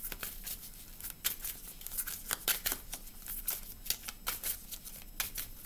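A deck of tarot cards shuffled by hand: a quick, irregular run of card clicks and flicks.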